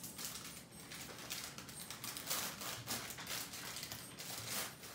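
Plastic wrapper of a graham cracker sleeve crinkling and rustling as it is opened and handled, with irregular crackles throughout.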